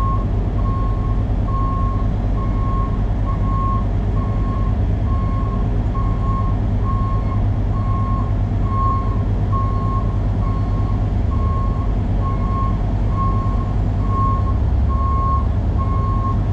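A heavy diesel truck engine idling with a steady low hum, under a backup alarm beeping evenly, about one and a half beeps a second.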